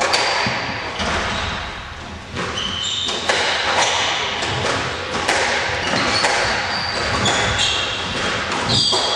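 Squash rally: the ball hits the rackets and the court walls again and again in sharp smacks, and sports shoes squeak briefly on the wooden court floor several times.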